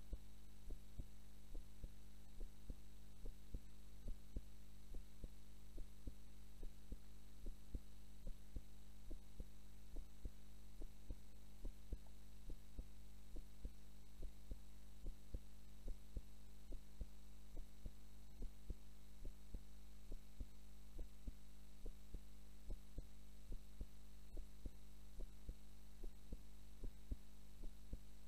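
A woman's heartbeat recorded while she sleeps, beating at an even resting pace. Under the beats runs a steady low hum.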